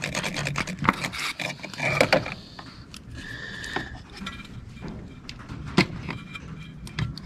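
Rubber spark plug wire boots being twisted and pulled off their plugs by hand, rubbing and scraping with several sharp snaps as the rubber lets loose, and a brief squeak a few seconds in.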